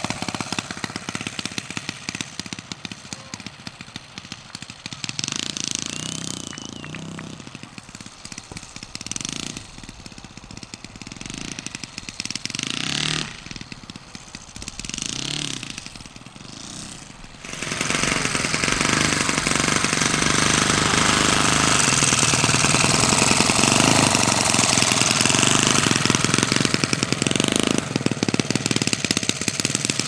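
Kolm 65 cc four-stroke engine of a large radio-controlled model aircraft running throttled back, its level rising and falling as the model lands and rolls on grass. About halfway through it becomes suddenly much louder and steady.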